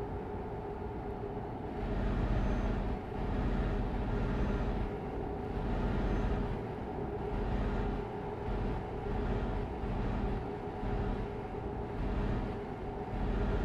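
Road and engine noise of a moving vehicle: a steady hum with a held mid tone under a low rumble that swells and eases about every two seconds.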